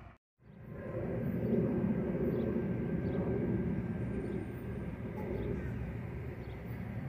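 A moment of silence, then a steady low outdoor rumble beside the railway tracks, with a New Jersey Transit train still far off down the line.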